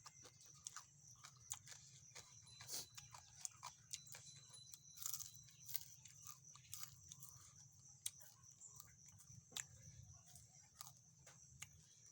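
A person chewing and smacking food close to the microphone, in irregular small clicks and crunches, over a steady high chirring of crickets.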